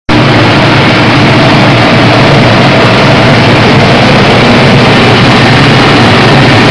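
SB-series rice mill running, driven by a belt from an electric motor, with milled rice streaming out of its discharge chute: loud, steady machine noise with a low hum.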